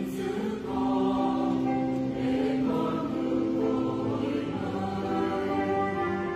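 Church choir singing a slow hymn in long held chords.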